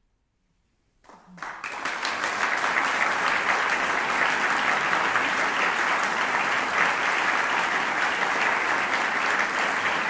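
Concert audience applause breaking out after about a second of silence, swelling within half a second into steady clapping at the end of a string quartet piece.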